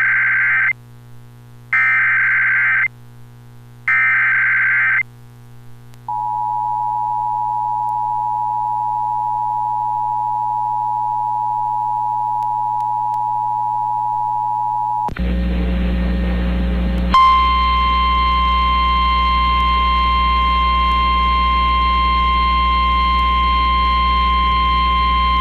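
Start of an Emergency Alert System alert: three short bursts of SAME header data tones, then the steady two-tone EAS attention signal for about nine seconds. About fifteen seconds in, the audio switches to a hissy NOAA Weather Radio feed, and from about seventeen seconds the weather radio's single steady 1050 Hz warning alarm tone sounds.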